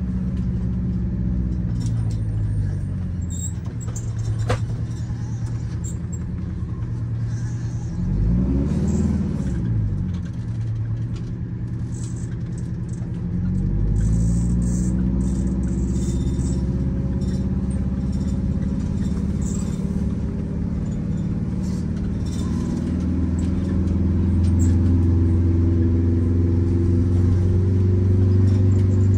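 Blue Bird Wanderlodge's Detroit Diesel 8V92TA, a two-stroke turbocharged V8 diesel, running under way, heard inside the bus cab. Its pitch rises and falls briefly about eight seconds in and climbs again a few seconds later, then settles into a steadier, louder run near the end.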